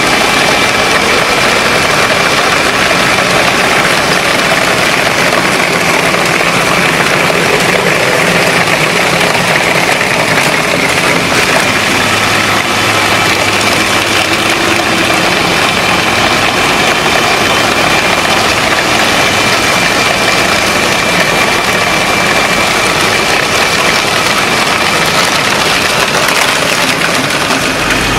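A large machine engine running steadily at a constant pitch, with a thin high whine held throughout and no separate impacts.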